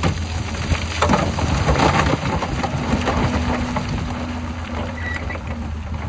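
Heavy machine's diesel engine running steadily under a dense crunching clatter of rock and soil being moved, heaviest about one to three seconds in.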